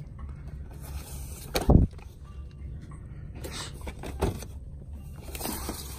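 A low, steady background hum with a few rustles and bumps of handling. The loudest is a single knock about a second and a half in.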